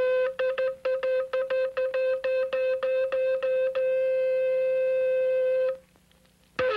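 A hand-blown horn sounding one note: a rapid run of short blasts, about five a second, then a long held note that cuts off sharply, and one more short blast near the end whose pitch falls away.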